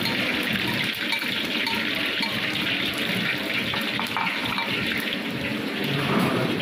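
Chicken cubes in an egg-and-cornflour coating deep-frying in hot oil in a wok: steady sizzling and bubbling.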